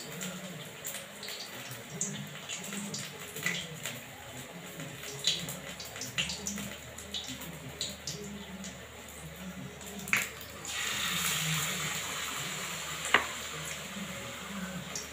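Wet clicks and squelches of fingers working leaves through thick gram-flour (besan) batter in a bowl. About eleven seconds in, a steady hiss starts and runs on, with one sharp click shortly after.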